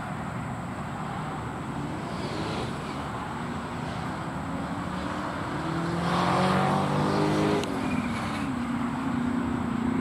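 Road traffic: a passing vehicle's engine hum and tyre noise swell about six seconds in and fade again, over a steady background of traffic noise, with another engine hum near the end.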